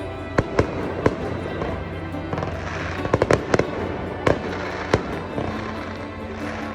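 Fireworks shells bursting in sharp, irregular bangs, with a quick run of several bangs about three seconds in, over music playing underneath.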